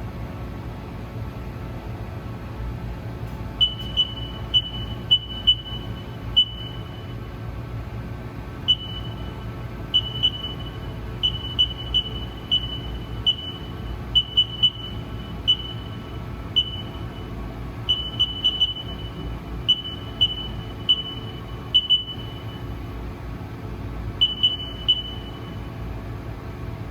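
Short, high beeps of one pitch at irregular intervals, singly and in quick runs, typical of keys being pressed on a Haas CNC lathe control panel, over a steady low hum.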